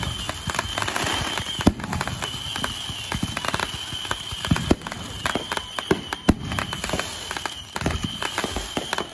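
Consumer fireworks going off: a dense run of pops and crackles with several sharper, louder bangs among them.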